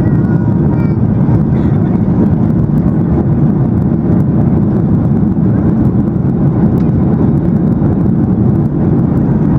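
Boeing 737-800 cabin noise during the climb after takeoff: a steady, loud, low rumble of the CFM56 engines and air rushing past the fuselage, heard from a seat over the wing.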